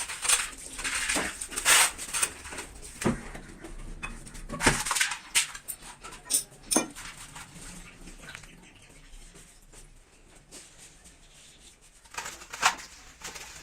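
Metal tools and parts clinking and knocking against each other in a run of sharp strikes during the first half, then quieter, with one more clink near the end.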